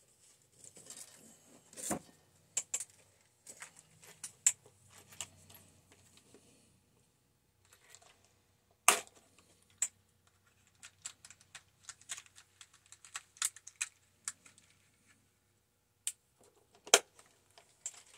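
Small loose screws and metal hardware clinking and rattling as they are rummaged through by hand, in scattered clicks with a few louder knocks about 2, 9 and 17 seconds in.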